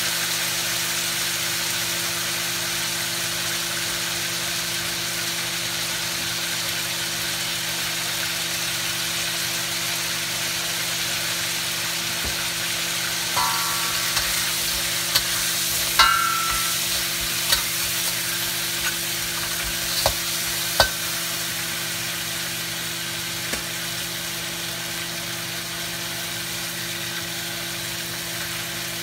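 Blue crabs sizzling in hot oil in a wok, a steady frying hiss. About halfway through, a metal spatula clinks and scrapes against the wok a few times as the crabs are turned.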